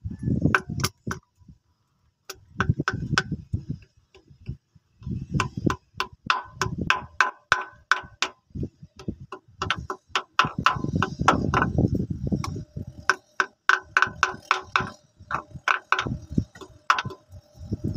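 Repeated hammer taps, metal on metal, driving a crankshaft front oil seal into an engine's timing cover. The taps come in quick runs of about three to four a second, with brief pauses, and each one rings slightly.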